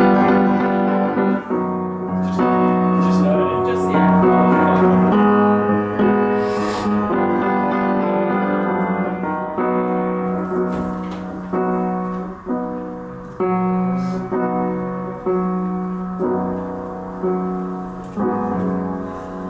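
Unamplified piano played solo: chords struck about once a second, each left to ring and die away before the next.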